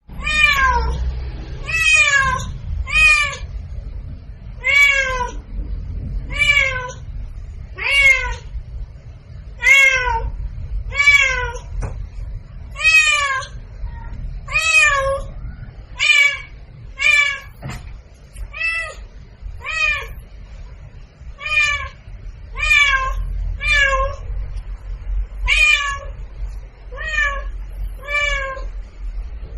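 A domestic cat meowing over and over, roughly one meow a second, each call rising then falling in pitch, over a low steady rumble.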